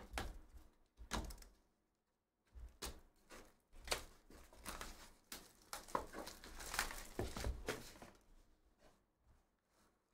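Hands handling and opening a cardboard trading-card box: scattered taps, scrapes and light thunks as the box is turned and its lid lifted off, dying away near the end.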